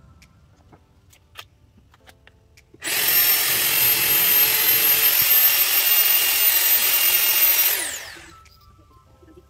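Corded electric drill boring into a wall: a few faint taps, then about three seconds in the drill runs at full speed for some five seconds and winds down with a falling whine.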